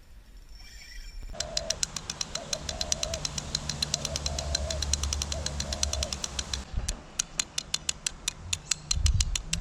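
Rapid, even clicking, about seven clicks a second, slowing to about four a second in the second half, with a dove cooing several times underneath.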